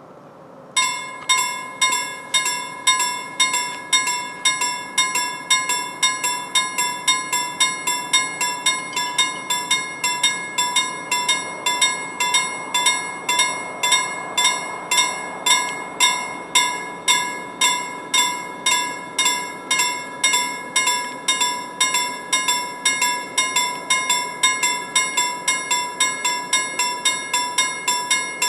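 Level crossing warning bell starting up about a second in and ringing in rapid, even strikes, about two a second, warning that a train is approaching while the barriers lower.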